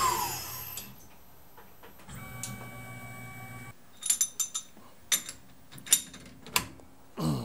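Spindle of a Tormach PCNC 1100 CNC mill winding down with a short falling whine as the cut ends, then a brief steady hum. From about four seconds in, a series of sharp metallic clicks and knocks as the machine vise is worked by hand to free the steel part.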